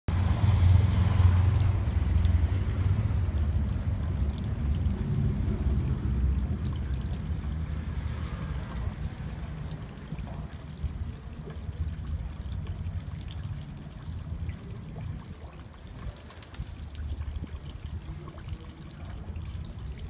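Water trickling from a stone mask spout into a stone basin of a wall fountain, a steady splashing stream. A low rumble runs underneath, loudest in the first seconds and slowly fading.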